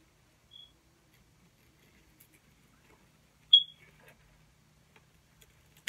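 Artificial flower stems being pushed into a styrofoam wreath ring, squeaking as they go in: a faint short squeak just over half a second in and a loud one about three and a half seconds in, with soft handling clicks between.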